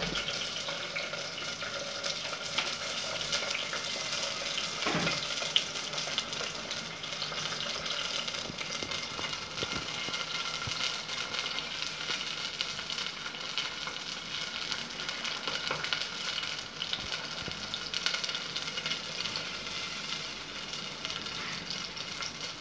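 Vadagam, small onions and garlic cloves frying in hot gingelly (sesame) oil, a steady sizzle with fine crackles as the pan is stirred. A single knock about five seconds in.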